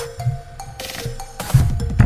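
Electronic music with a heavy bass beat: drum hits, low bass sweeps and synth notes, with hissing bursts over the top.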